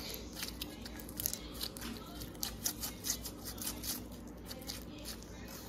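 Blue jelly slime mixed with small plastic beads being squeezed and stretched by hand, giving a rapid, irregular run of crackling clicks and squishes, busiest in the middle.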